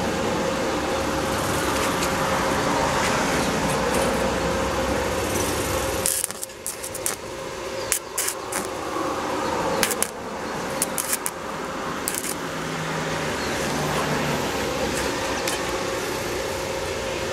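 Steady outdoor traffic noise, broken for several seconds in the middle by a series of sharp metallic clicks and taps from work on a small steel frame.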